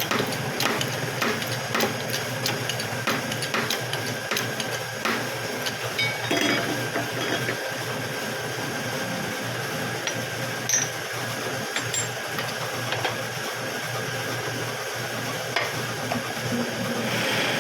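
Sharp knocks of a tool striking metal, about one or two a second for the first few seconds and then fewer and more spread out, over a steady low hum.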